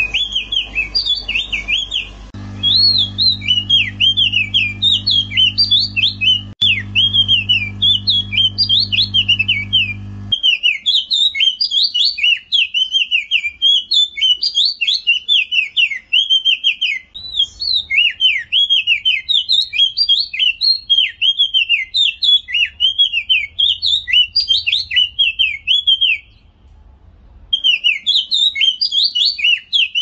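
A caged songbird of the white-eye type, sold as the 'striped-crown white-eye', singing a long, fast, almost unbroken run of high chirps and warbling trills, with one short pause near the end.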